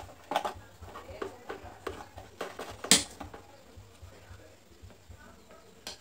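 Long screwdriver clicking and tapping against the metal parts of a seized electric fan motor as it is worked inside the housing, with one sharp metallic click about three seconds in.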